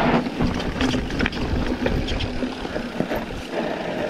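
Mountain bike riding down a dirt trail: tyres rolling and crunching over the ground, and the bike rattling with many short knocks over bumps, over a steady low hum.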